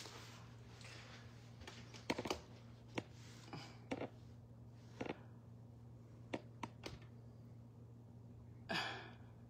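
Quiet room with a steady low hum and scattered light clicks and taps, about a dozen spread irregularly through the stretch, with a brief soft rustle near the end.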